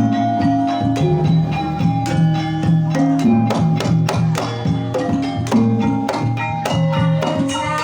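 Banyumasan-style Javanese gamelan music playing a tayub gending: a steady rhythmic texture of struck tuned percussion, with frequent drum strokes.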